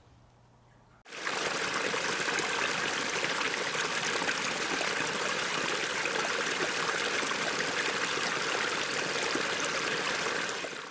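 Steady rushing of a creek's running water, coming in suddenly about a second in and cutting off suddenly near the end.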